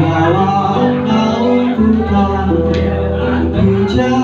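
A vocalist singing a song live into a microphone, accompanied by a strummed acoustic guitar.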